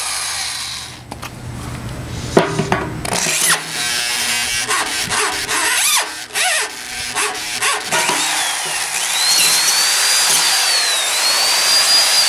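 Electric drill boring a large Silver & Deming bit through the steel of a tractor bucket, with the bit chattering and catching, then a high whine that rises and falls as the motor speeds up and bogs down. The drill is straining under the load, which the owner fears may be the end of it.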